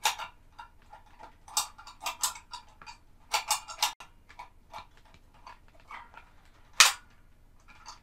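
Replacement snap-action microswitch, the space heater's normally closed tip-over switch, clicking irregularly as a finger presses its plunger; one click near the end is much louder than the rest. The plunger is getting hung up, which the owner takes for a little warpage in the mount.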